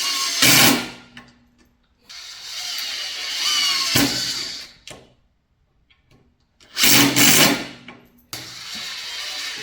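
Cordless impact driver running in several short bursts, its motor and rapid hammering mechanism working, with brief silent pauses between runs.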